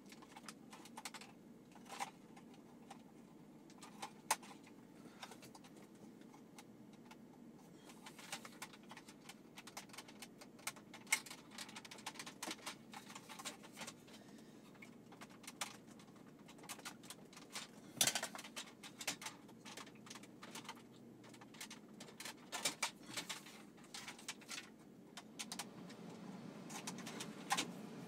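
Scattered plastic clicks and light rattles as a dashboard trim panel and its wiring-harness connectors are handled and unplugged, over a faint steady hum, with a sharper clatter about 18 seconds in.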